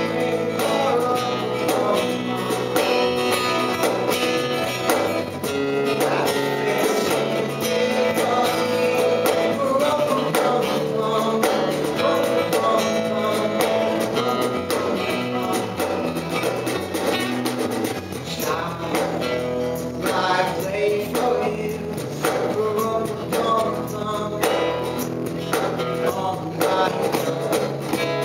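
Live band music from electric and acoustic guitars, strummed and picked to a steady beat.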